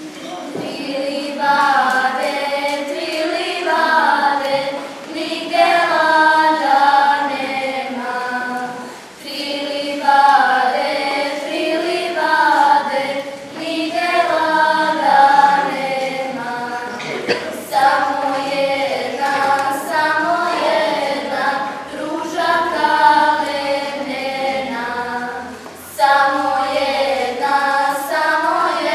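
A group of young girls singing a traditional folk song in unison, unaccompanied, in phrases of a few seconds with short breath pauses between them.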